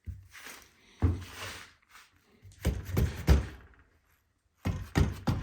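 A series of dull wooden thunks in uneven groups: the butt of an axe handle being tapped to drive a boy's axe head down onto it for a test fit.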